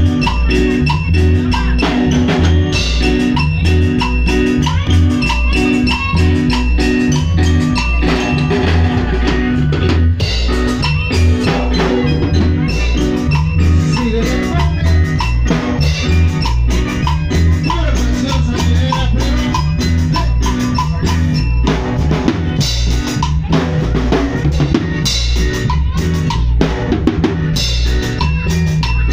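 A live band playing, with the drum kit loud and close, over a steady repeating bass line.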